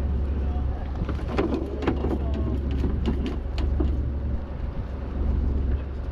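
Fishing boat's engine running with a steady low hum, and a run of sharp knocks and clatter on deck about one to four seconds in.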